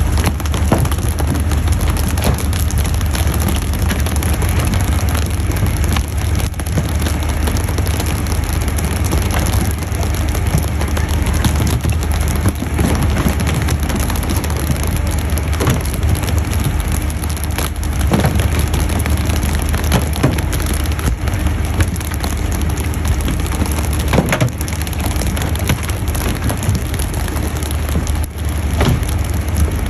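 Steady rain-like hiss of the pole-and-line boat's water sprayers spattering on the sea surface over a low engine drone. Scattered sharp knocks come through it as skipjack tuna are flicked aboard and hit the deck.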